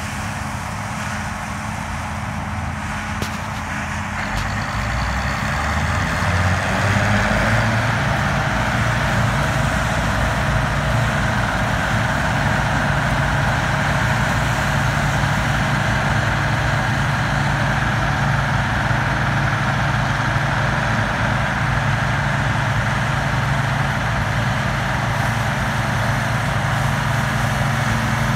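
Bizon combine harvester's diesel engine winding up into its working revs: about five seconds in the engine note rises and grows louder, then holds steady as it runs under load.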